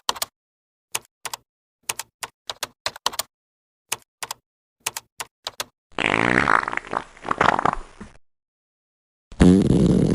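A run of about fifteen short, sharp clicks over five seconds, then a rough fart sound lasting about two seconds. About a second before the end a louder, deeper fart sound begins.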